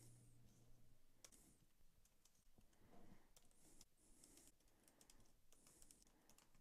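Faint computer keyboard typing: irregular, scattered key clicks.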